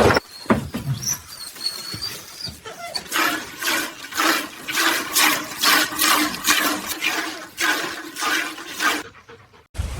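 Liquid splashing in quick, regular spurts, two or three a second, from about three seconds in until just before the end.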